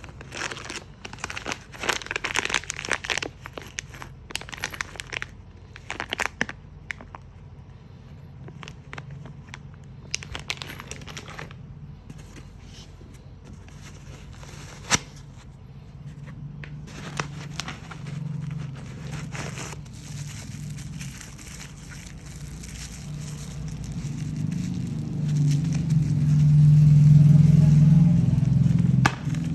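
Packaging being crinkled, rustled and torn open by hand, in irregular crackly bursts. Under it is a steady low hum, like a vehicle, that grows louder in the last few seconds.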